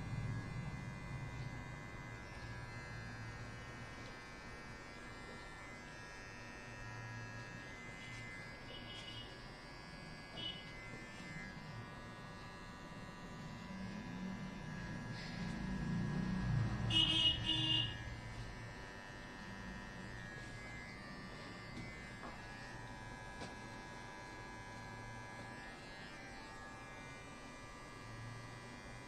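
Electric hair clipper/trimmer running with a steady hum while the hairline is outlined. It grows louder for a few seconds past the middle.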